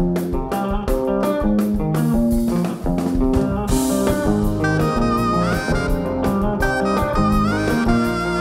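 Live band playing a pop-rock cover with electric guitar, bass guitar, drum kit and keyboard. About five seconds in, a saxophone melody enters, sliding up into some of its notes.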